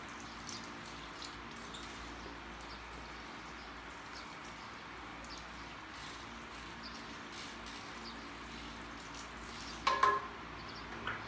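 Water spraying from a hand-held shower head onto hair and running into a salon backwash basin: a steady hiss with small drips. A sharp clink near the end.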